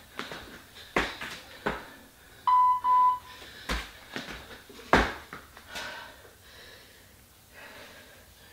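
Heavy thuds of feet landing on the floor from burpee tuck jumps, several times. An interval timer beeps twice, briefly, about two and a half seconds in, marking the change of interval.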